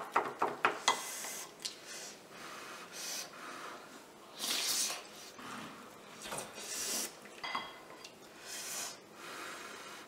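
A wooden spoon clicks against a ceramic bowl several times in the first second as stew is mixed into rice. Then a person eats something hot and spicy: sharp hissing breaths in, breaths out ("hah"), slurping and lip-smacking, coming in separate bursts.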